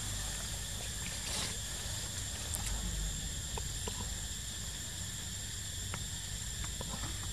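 Steady high-pitched drone of forest insects, with a low rumble underneath and a few faint scattered ticks.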